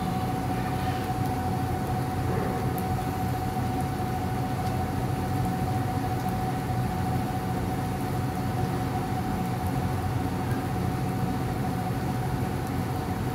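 Steady hum of an electric cooktop's cooling fan, with a constant whine held on one note, while chicken breasts fry quietly in a skillet.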